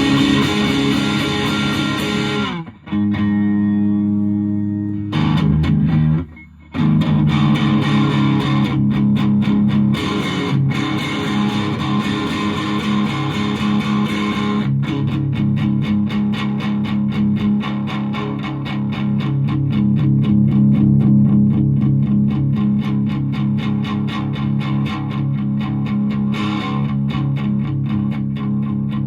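Electric guitar, a Fender Japan Jazzmaster, played through a 1985 Japanese-made Boss DS-1 distortion pedal into an ELK FSB-45 amp, picked up by a smartphone microphone. Distorted chords and fast picked riffs, with two brief breaks about 3 and 6 seconds in.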